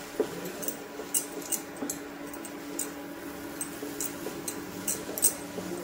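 Wooden spatula stirring masala-coated green peas in a nonstick frying pan: irregular sharp clicks and soft scrapes of the spatula against the pan, over a steady low hum.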